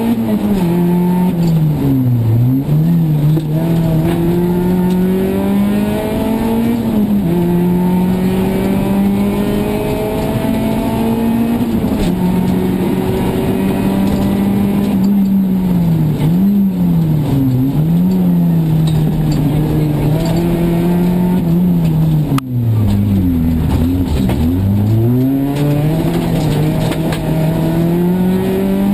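Peugeot 206 RC Group A rally car's 2.0-litre four-cylinder engine heard from inside the cabin, driven hard through the gears: the pitch climbs and drops back at each upshift, dips with downshifts under braking, and falls lowest about three-quarters of the way through before revving up again.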